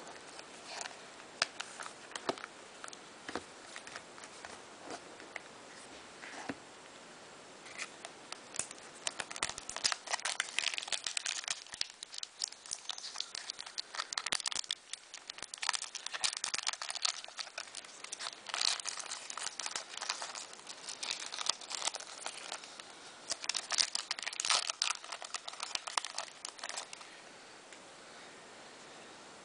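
Shiny plastic wrapper of a football card pack crinkling and tearing as it is handled and opened. Scattered light clicks and taps for the first several seconds, then dense crinkling from about eight seconds in, stopping near the end.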